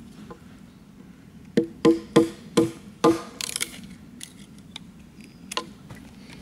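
Gränsfors Bruk mini hatchet, its blade set in a thin stick, knocked against a log five times in quick succession to drive it through. Each knock rings briefly like a wood block, and the stick then splits with a short crackle.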